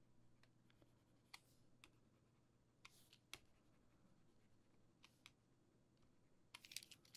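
Near silence with faint, scattered clicks of computer input while drawing, a few in the first half and a small cluster near the end.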